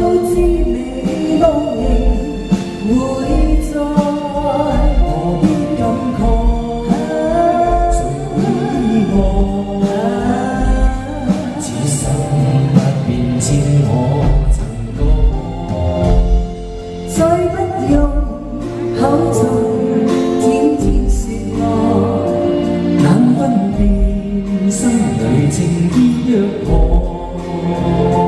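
A man and a woman singing a duet over backing music with a steady low beat.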